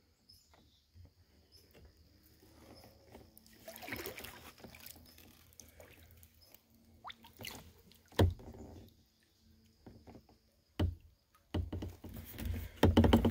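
Kayak paddling through shallow water: quiet paddle strokes with splashing and dripping. From about two-thirds of the way in come several sharp knocks, thickening into a louder patch of splashing and knocking near the end.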